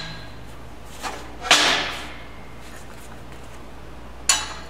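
Steel welding test plates set down onto a steel backing bar in a fixture: a light tap about a second in, a loud metal clank just after with a brief ring, and another sharp clank near the end.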